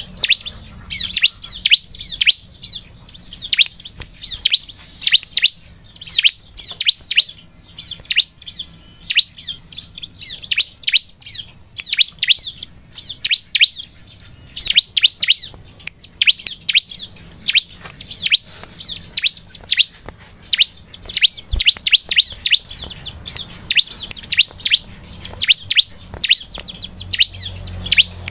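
Bar-winged prinia (ciblek) calling: fast runs of sharp, high, downslurred chirps, several a second, in bursts broken by short pauses.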